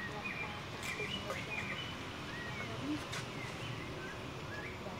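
Outdoor ambience of small birds chirping: many short, high chirps, some sliding up or down, over a steady background hiss.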